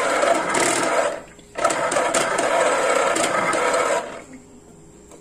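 Britânia electric citrus juicer running with a steady motor whir, its cone turning one way and then the other: the motor stops briefly about a second in, starts again, then cuts out about four seconds in. The juicer stopped working on its first use.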